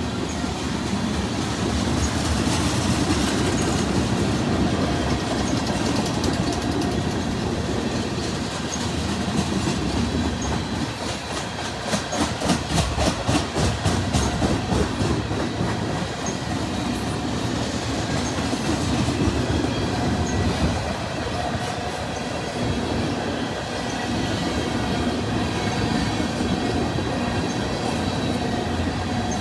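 A train rolling steadily past, its cars' wheels clacking over the rail joints, with a quick run of sharp clacks about halfway through.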